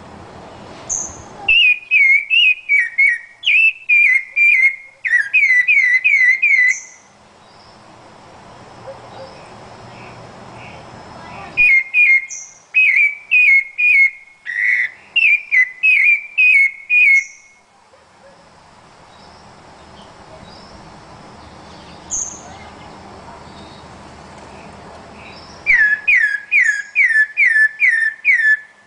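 Rufous-bellied thrush singing: quick runs of clear whistled notes, about four a second, in three bouts separated by pauses, with a short high thin note at the start of some bouts.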